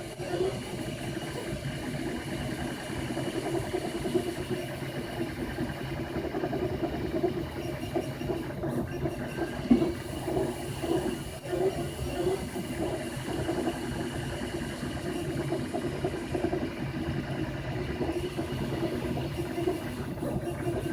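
3D printer running while printing, a steady mechanical hum and hiss from its motors and fan, with small ticks and one sharper click about halfway through.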